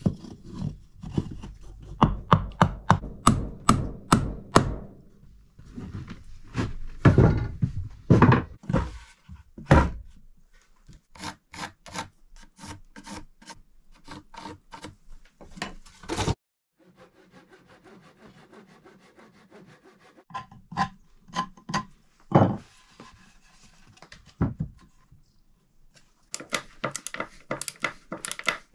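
Handsaw cutting a wooden block, in bouts of quick back-and-forth strokes. Midway it goes quieter, with a few sharp knocks of wood, and a fast run of strokes starts again near the end.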